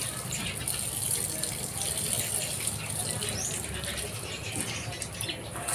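Water spraying steadily from a garden-hose spray nozzle onto a dog's wet coat and splashing on concrete.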